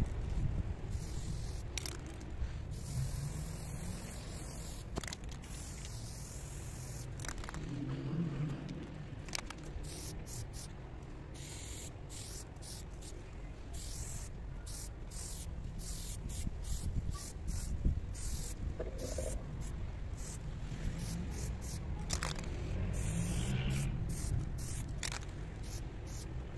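Aerosol spray paint can hissing in many short bursts and a few longer sprays as lines are painted, with a steady low rumble underneath.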